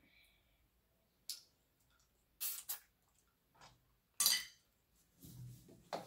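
Cracked crab claw shells handled and picked apart by hand: about five sharp clicks and crackles of shell, the loudest about four seconds in, then a duller, lower rustle near the end.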